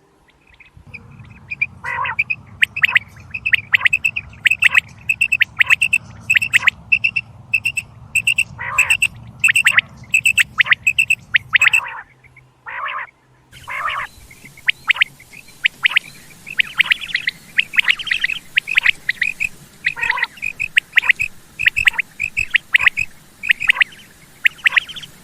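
Quail (batair) calling over and over in rapid short, high notes, a few of them lower and harsher; a call recording of the kind played as a lure for quail hunting. A low hum lies under the calls until about halfway, where the recording breaks and goes on over a light hiss.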